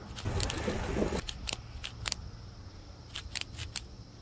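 Thumb-lever shifter of a prototype bicycle gearbox clicking as it is shifted down through the gears from 13th toward 1st with the bike standing still: a couple of separate sharp clicks, then a quick run of about four. A rustling noise comes first, in the opening second.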